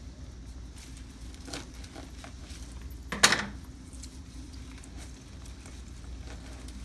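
Light rustling and faint clicks of artificial floral stems being handled and pushed into a porch pot, with one sharp click about three seconds in, over a steady low hum.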